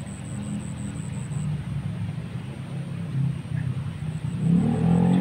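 A low, steady engine-like rumble, growing louder toward the end.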